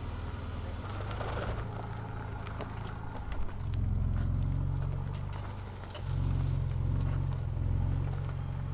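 Ford Ranger Raptor pickup's engine running at low speed under load as it crawls up a rough dirt trail, the low hum swelling twice as throttle is applied, with scattered light clicks.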